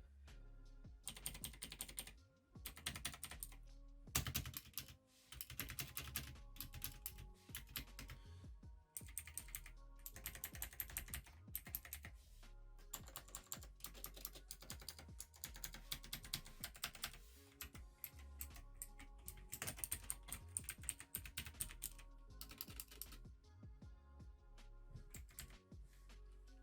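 Fast typing on a Marvo KG934 mechanical keyboard with clicky Outemu Blue switches: runs of sharp key clicks with short pauses between them.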